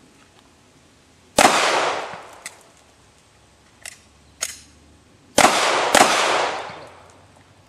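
Three pistol shots: a single shot, then a few lighter clicks of a magazine change, then two quick shots about half a second apart. Each shot rings out for about a second.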